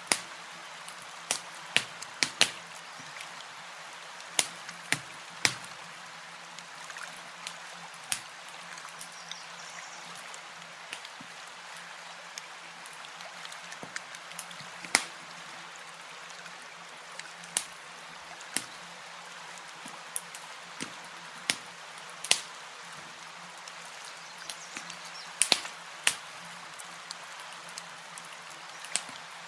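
Campfire crackling: irregular sharp pops and snaps, a few much louder than the rest, over a steady soft hiss.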